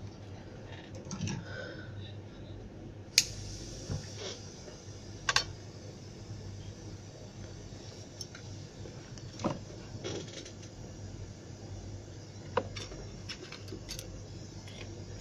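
Sharp, scattered clicks and knocks of an opened smartphone and small repair tools (tweezers, a pry tool) being picked up, handled and set down on a workbench, the loudest about three seconds in, over a steady low hum.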